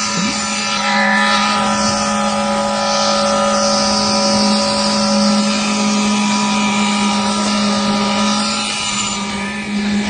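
Concrete mixer pump running under load while it delivers concrete through the hose: a loud, steady engine drone with a constant low hum and several steady higher tones.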